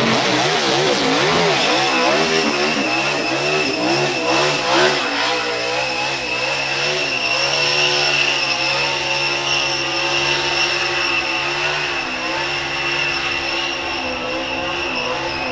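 NASCAR stock car's V8 engine running hard, its pitch swinging rapidly up and down for the first few seconds, then holding a steadier note with small rises and dips.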